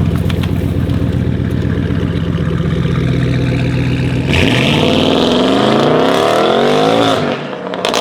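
Tuned 750 hp Audi RS7 Sportback C8's twin-turbo 4.0 V8 running steadily at low revs, then revving up hard for about three seconds under full throttle. It lifts off with a few sharp exhaust crackles near the end.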